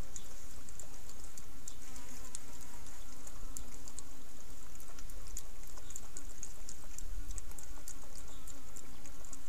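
Steady high-pitched insect drone with many small irregular ticks and clicks over a low rumble.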